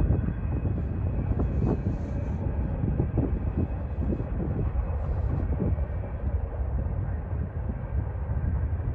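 Distant freight train rumbling steadily, with gusts of wind buffeting the microphone.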